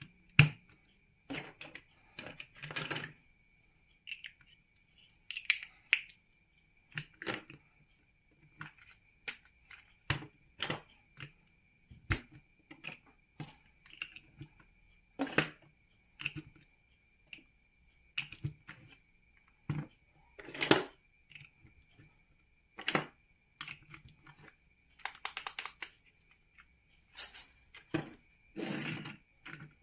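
Large plastic building bricks being handled and snapped together: irregular sharp clicks and brief clattering rustles, with pauses between, over a faint steady high tone.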